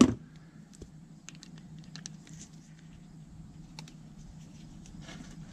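Scattered light clicks and rubbing from handling a rubber hose and its metal hose clamp as the hose is worked onto a fitting, over a faint steady low hum.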